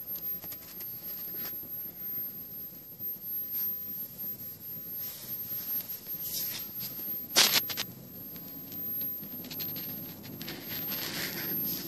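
A hand-made 35mm film projector running with a steady low mechanical noise and scattered light clicks. A sharper cluster of clicks comes about seven and a half seconds in.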